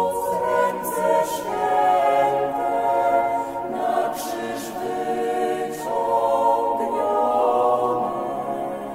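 Choir singing a slow hymn in held chords that change every second or two.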